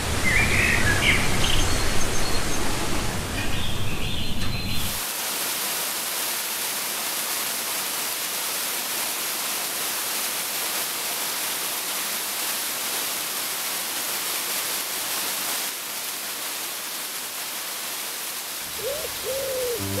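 Birds chirping over a low rumble, which cuts off about five seconds in. A waterfall's steady rushing hiss follows, falling water splashing onto rock.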